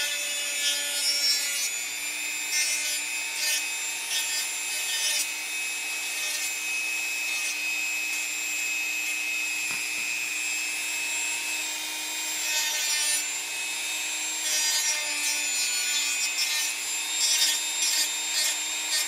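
Handheld rotary tool with a small sanding drum running at high speed, a steady whine with a gritty rasping as the drum rubs along the edges of a Kydex knife sheath, smoothing the inside edge of its top.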